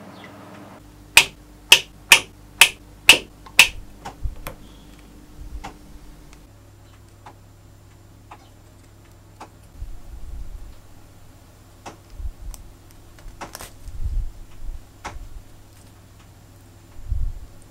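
Torque screwdriver clicking six times, sharp and loud, about half a second apart, followed by a few fainter clicks. Later, small metal engine parts are handled, with soft knocks, rustling and light clicks.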